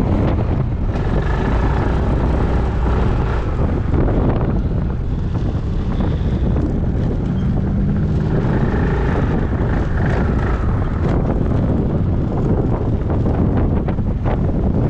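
Heavy wind buffeting the microphone on a moving Yamaha Majesty 400 scooter, with the scooter's engine running underneath. The rumble is steady and loud throughout.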